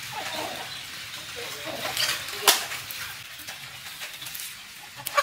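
Split bamboo strips clicking sharply against the mouth of a jar as they are wedged crosswise over packed, salted small fish. Two distinct knocks: a loud one about halfway through and another near the end, with lighter handling sounds between them.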